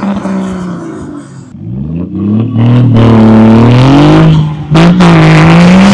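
Off-road 4x4 engine revving hard. The revs climb from about two seconds in and are held at full throttle, with a brief lift near the end before it comes back on.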